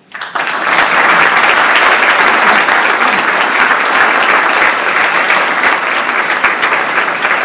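An audience applauding, starting suddenly and keeping up a steady clapping throughout.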